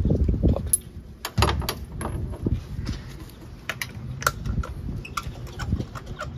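Metal hand tools clicking and clinking irregularly: a spark plug socket on a long extension is worked in and out of the engine's spark plug wells, with a few dull knocks near the start.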